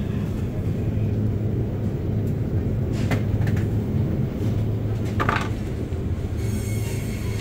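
Steady low hum of supermarket refrigerated display cases and ventilation, with a few brief short sounds about three and five seconds in.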